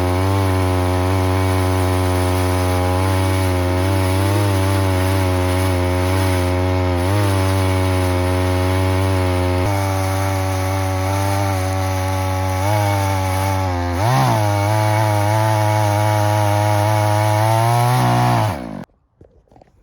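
Gas-engine sawmill running steadily under load as it cuts the first board off a log, its pitch dipping slightly now and then; the engine shuts off near the end, its pitch falling away to quiet.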